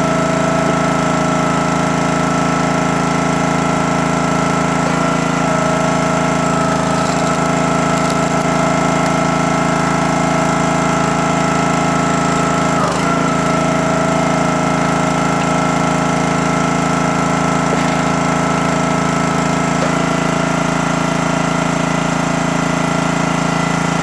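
CountyLine 28-ton log splitter's small gas engine running steadily, its pitch dipping briefly a few times, about five, thirteen and twenty seconds in.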